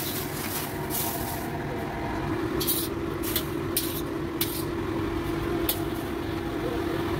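Cooking utensil clinking against metal several times as boiled green beans are lifted out of the wok into a steel pan, over a steady kitchen roar; a steady hum joins about two seconds in.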